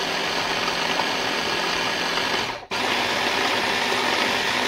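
Shinestar 500-watt electric hand blender motor running on its chopper attachment, chopping vegetables in the plastic bowl. It cuts out for a moment about two and a half seconds in and starts again straight away.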